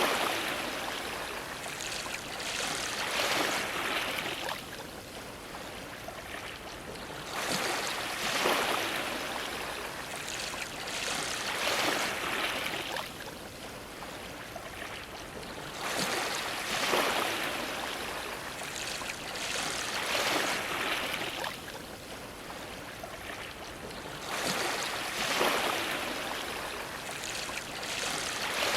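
Small waves washing and splashing against a dock, coming in uneven surges every few seconds, with water trickling and sloshing in between.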